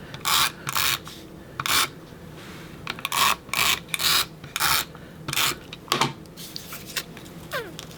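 Paper rasping and rubbing in about nine short, irregular strokes: cardstock being worked through a Creative Memories Border Maker to punch a border strip.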